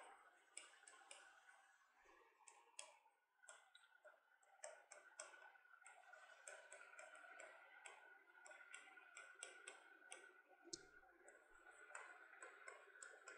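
Faint clicks and scratching of a marker pen on a writing board as words are written, many small taps strung through the whole stretch.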